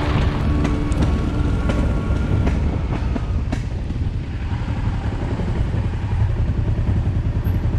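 Honda Transalp 600 V-twin motorcycle engine running under way on rough ground, with scattered knocks and rattles in the first few seconds.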